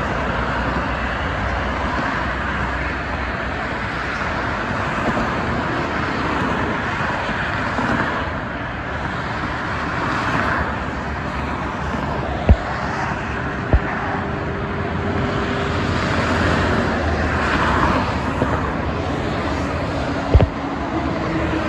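Steady highway traffic noise: the tyres and engines of a stream of cars and trucks passing below. A few sharp knocks stand out, about halfway through and again near the end.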